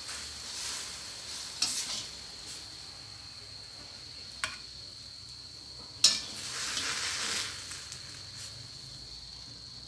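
Water spinach sizzling in oil, water and fish sauce in a steel wok as it is stirred and tossed with a spatula: a few short bursts of sizzle, then a sharp clank of the spatula on the wok about six seconds in followed by a longer sizzle.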